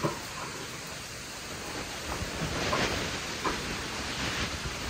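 Cement sacks being handled on a wooden cart: rustling and scraping of the sacks over a steady hiss, with a sharp knock at the start and another short knock about three and a half seconds in.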